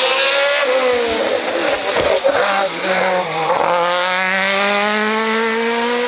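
Hillclimb race car engine at high revs. Just before a second in the revs drop, and the note breaks up into pops and blips as the car brakes and downshifts. From about four seconds it accelerates hard again, its note rising steadily.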